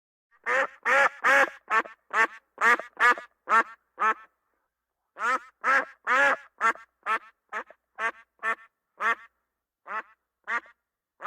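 A duck quacking close up: a quick run of about nine quacks, then after a short pause a longer run that grows sparser and fainter.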